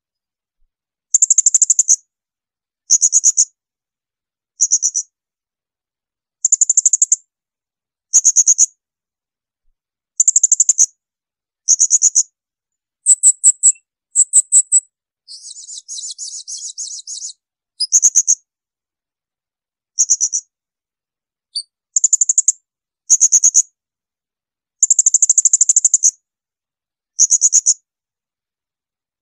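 Serindit (blue-crowned hanging parrot) giving shrill, high-pitched call bursts, each a rapid string of notes lasting under a second, repeated about every one and a half to two seconds. About halfway through, a quieter buzzy chatter runs for about two seconds.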